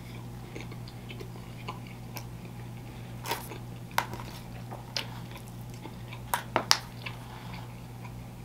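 A person chewing food, with a few sharp clicks and scrapes of a metal fork in a foil takeout tray, the loudest a quick run of three late on. A steady low hum runs underneath.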